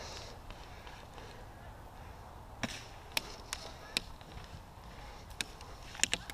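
A handful of sharp, short snaps of airsoft gunfire, irregularly spaced, starting a little over two and a half seconds in, over a faint steady background.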